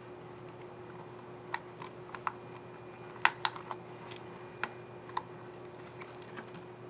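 Laptop keyboard keys clicking: about eight short, sharp clicks at an uneven pace, the loudest two close together about halfway through. The keyboard is a Toshiba Satellite P55-A5200's, mid-repair of a keycap and its scissor mechanism.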